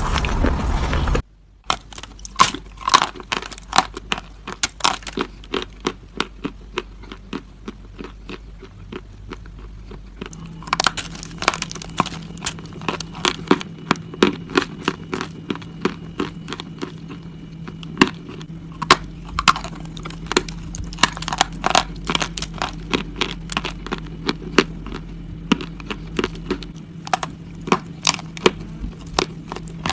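Close-up crunching of something hard and brittle being bitten and chewed: sharp, irregular cracks a few times a second. A dense noisy crunching stretch cuts off abruptly just over a second in before the separate crunches begin.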